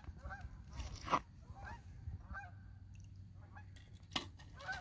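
Geese calling in a series of short honk-like calls, with two sharp clicks, one about a second in and one near the end.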